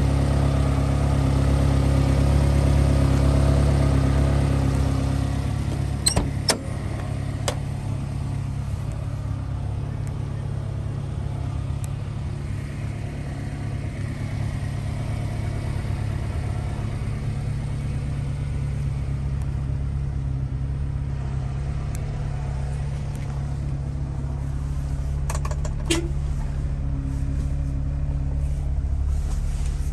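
1995 Subaru Sambar kei truck's 658 cc four-cylinder engine idling steadily. It is loudest at first and somewhat quieter after about five seconds. A few sharp clicks come about six seconds in and again near the end.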